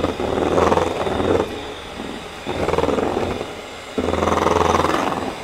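Electric hand mixer running in a stainless steel bowl, its beaters whipping an egg-and-flour batter. The motor sound comes in three surges of about a second each, dipping in between.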